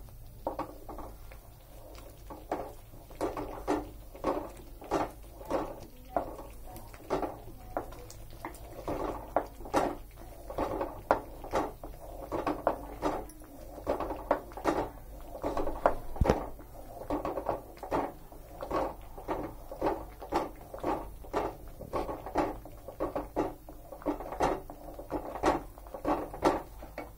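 A spatula stirring and scraping thick semolina halwa around a kadhai in steady strokes, about two a second, with occasional clicks against the pan. The halwa is thick and nearly done.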